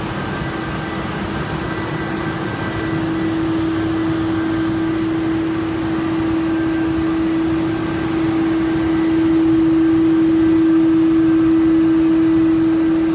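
Takano B201 slitter rewinder running while slitting PE-laminated cup stock: a steady machine hum with one strong steady tone over a rushing bed. It grows louder about three seconds in and again about nine seconds in.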